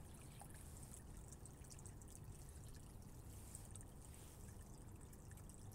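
Faint, steady trickle of water from a garden hose running into the soil of a planter bed.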